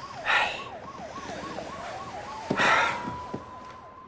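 Police sirens outside: a yelp swooping up and down about three times a second, joined about two seconds in by a second siren that rises and holds a steady wail. Two short, sharp bursts of noise, the loudest sounds, come about two seconds apart.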